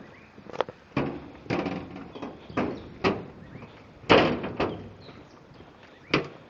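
Footsteps on the loose stone ballast of a railway track, irregular steps about two a second, the loudest one a little past the middle.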